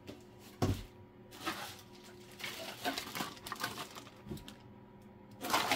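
Clear plastic bag of 3D-printed statue parts being picked up and handled: plastic crinkling and rustling with light knocks, a sharper thump about half a second in, and denser crinkling near the end.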